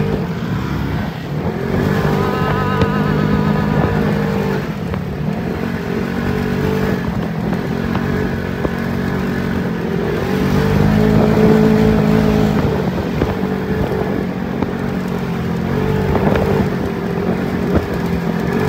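Vehicle engine running steadily, its pitch rising and falling as it speeds up and slows down over rough ground.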